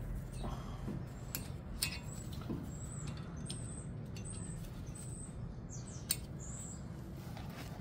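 A few light metallic clicks and taps as wheel bolts are set by hand through a brake rotor into the wheel hub, over short, high bird chirps.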